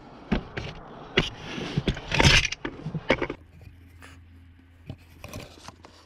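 Bolts being fitted by hand into a clutch pedal housing: metal clicks and clinks, with a scrape about two seconds in, the loudest sound. After that the handling goes quieter.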